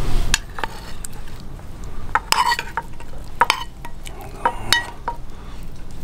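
Sausage slices tipped from a pan into a pot of thick pea soup and stirred in with a metal spoon, with scattered clinks and scrapes of metal on the camping pot, some ringing briefly.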